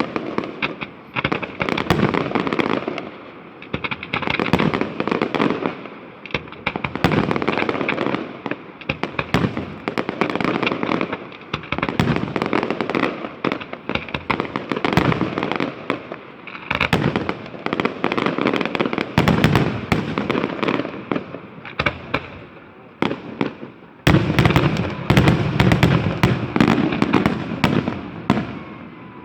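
Fireworks display: dense, rapid bangs and crackling from shells and firecrackers, coming in waves that ease off for moments and build again, with a heavier barrage starting near the end.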